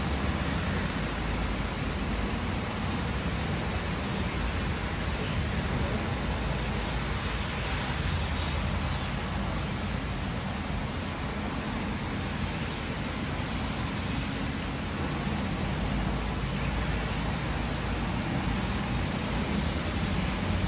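Steady heavy rain falling, a constant even hiss, with a low rumble underneath.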